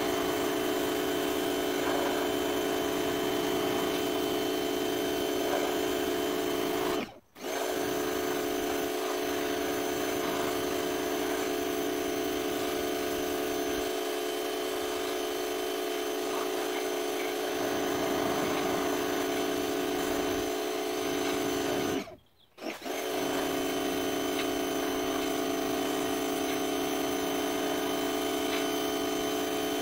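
Pressure washer running steadily: the motor and pump hum, and water spray hisses from the wand against wooden fence boards. The sound cuts out abruptly twice for under a second, about a quarter of the way in and about three-quarters of the way in.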